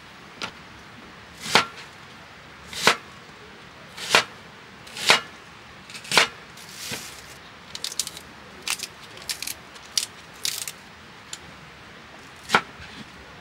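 A series of sharp chopping knocks: five strong strokes about a second apart, then a run of lighter taps and clicks, and one more strong stroke near the end.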